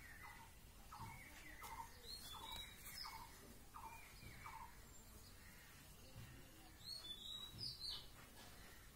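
Faint bird calling: a short falling note repeated about twice a second through the first half, then a few higher, quicker chirps near the end.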